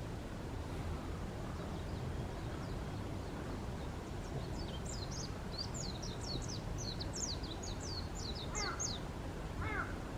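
Birds calling over a steady low rumble: a run of quick, high chirps in the middle, then two harsher, falling calls near the end.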